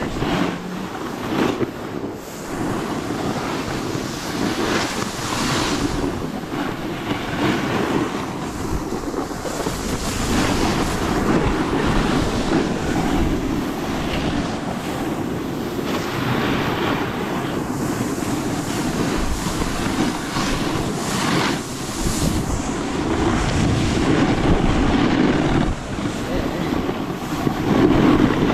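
Wind rushing over the camera microphone and a snowboard's edge scraping and sliding over packed snow during a run, swelling and easing as the rider changes edges.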